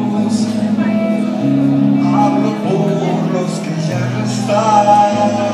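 Live acoustic guitar music: an instrumental passage over held low notes that change every second or so.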